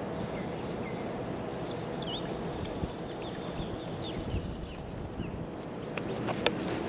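Outdoor pond-side ambience: a steady rushing background noise with faint bird chirps scattered through, and a few sharp clicks and taps about six seconds in.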